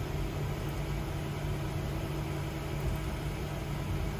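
Steady low hum over a hiss, unchanging throughout.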